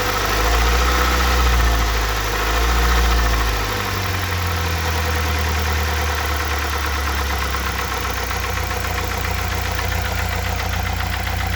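Mazda Tribute's 2.3-litre four-cylinder petrol engine, warm, swelling twice in the first few seconds and then idling with a steady, rapid knock. The owner does not know the cause; some have told him crankshaft, others camshaft, though the timing chain, sprockets and tensioners are new.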